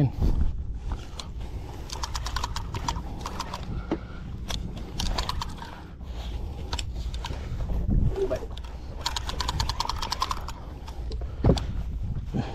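Spinning fishing reel being cranked against a heavy fish, a golden snapper (jenahak), on the line, its mechanism clicking rapidly in several runs.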